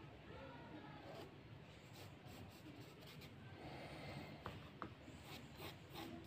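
Graphite pencil scratching on drawing paper in groups of short, light strokes.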